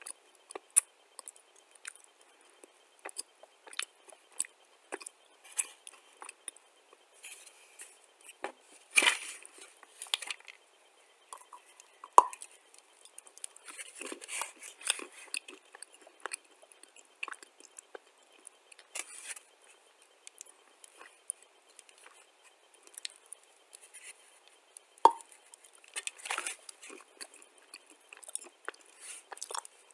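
Biting and chewing a chunk of dry, pale clay: irregular small crunches and clicks, with several louder bursts of crunching and two sharper knocks.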